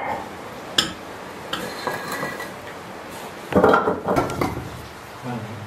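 Loose bricks being lifted and shifted on a concrete floor, knocking and scraping against each other, with the clink of a metal snake tong. A sharp knock comes about a second in, and a louder clatter about three and a half seconds in.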